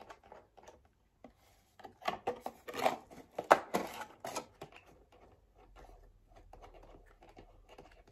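Plastic packaging crinkling and clicking as it is handled, in short crackles, loudest from about two to four and a half seconds in.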